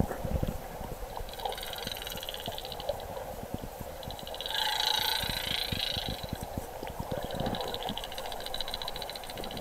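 Sound picked up by a camera under murky river water: a muffled watery hiss with many scattered clicks and knocks, and a high, fast-pulsing buzz that comes and goes in spells of a second or two, loudest about halfway through.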